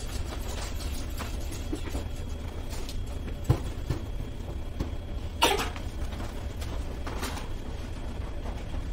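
Someone moving about and handling things in a room: scattered knocks and rustles over a steady low hum. There is a sharp knock about three and a half seconds in, and a louder scraping rustle about two seconds after that.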